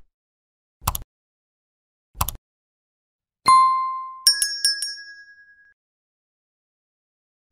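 Subscribe-button animation sound effects: two short mouse clicks, then a single bright ding about halfway through, followed at once by a quick run of about four higher bell chimes that ring out and fade.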